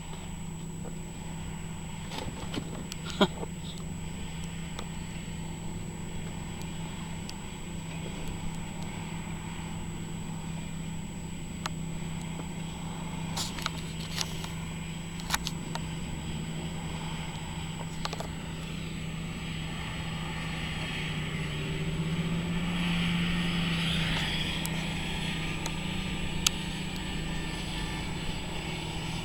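Engine of sugar beet harvesting machinery running steadily, with scattered sharp knocks and a swell of rushing noise about two-thirds of the way through.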